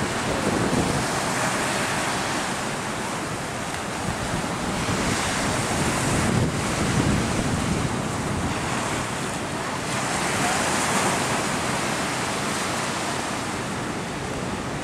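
Ocean surf breaking and washing up the shore, swelling in surges every few seconds, with wind rushing over the microphone.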